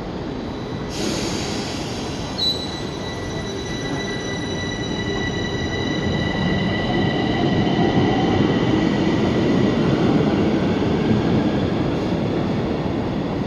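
Metro train pulling out of an underground station. A sudden hiss and a clunk come in the first few seconds, then steady high whining tones over the rumble of the cars. The rumble grows louder as the train accelerates away along the platform, then eases off near the end.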